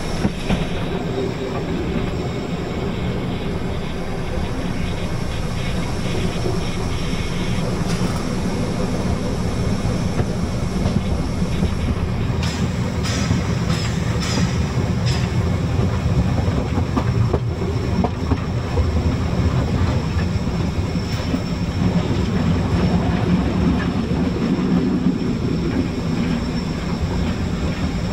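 Narrow-gauge steam train on the move, heard from on board: a steady rumble of the locomotive and carriages with wheel clatter on the rails. A few sharp, high clicks or squeals come in around the middle.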